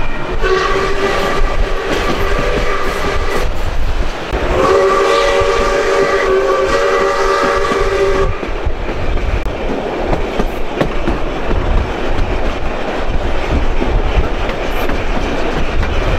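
Steam whistle of ex-South Australian Railways steam locomotive 621 sounded twice, a blast of about three seconds and then a longer one of about four, each a chord of several steady notes. After the whistle only the steady rumble and clatter of the broad-gauge train running on the rails is heard.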